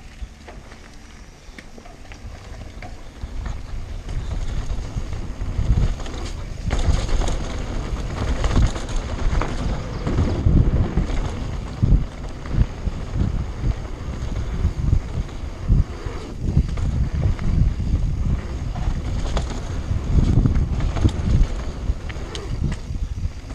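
Mountain bike riding down a dirt trail: tyres rumbling and the bike rattling and knocking over bumps, with wind buffeting the camera microphone. It gets louder a few seconds in as the speed builds.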